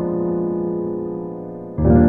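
Background music on piano: a held chord slowly fades, then a new chord is struck near the end.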